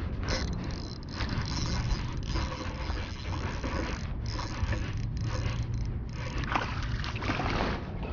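Jacket fabric rustling and scraping against the microphone amid low wind rumble, with the mechanical clicking of a spinning reel being cranked.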